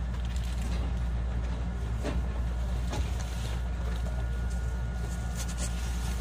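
Inside the motor car of a JR West 221 series electric train: a steady low rumble, with a few sharp clicks and knocks about two, three and five and a half seconds in.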